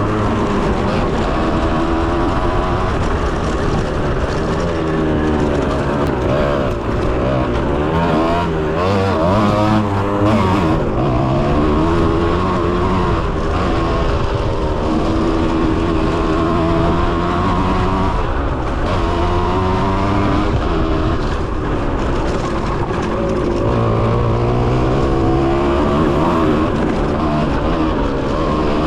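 Kawasaki KX 125 two-stroke single-cylinder engine being ridden hard, its pitch rising and falling again and again with the throttle and gear changes.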